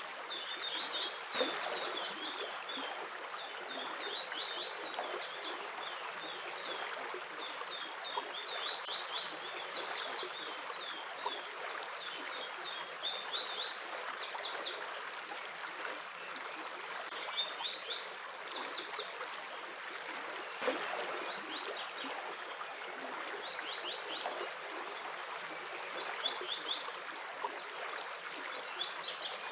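Water of a stream flowing steadily, with small birds chirping over it in short quick trills that recur every second or two.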